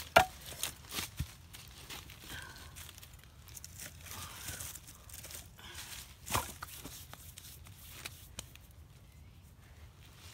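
Cut firewood sticks clattering and knocking together, with dry leaves rustling, as an armful of small logs is set down and stacked by hand. The loudest knock comes just after the start and another about six seconds in.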